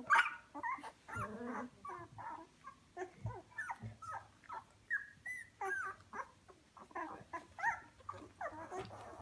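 A litter of young Goldendoodle puppies, not yet two weeks old, whimpering and squeaking, with many short high calls overlapping several times a second.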